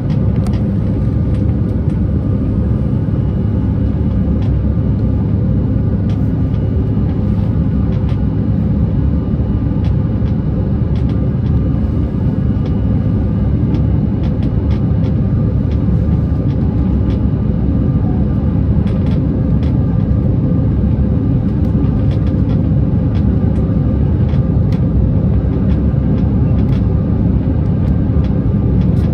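Steady low roar of an airliner's engines and rushing air heard inside the passenger cabin as the plane climbs after takeoff, with a faint steady hum and scattered small clicks.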